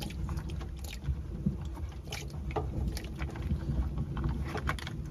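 Water sloshing and splashing as it is scooped out of a car that has leaked in the rain, with scattered knocks of handling over a steady low rumble.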